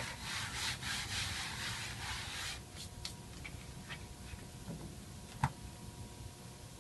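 A hand rubbing and spreading flour across a cutting board in scratchy brushing strokes for about two and a half seconds. Then quieter handling with a few light clicks, and one sharp knock about five and a half seconds in as the bowl of dough is handled and the dough is turned out onto the board.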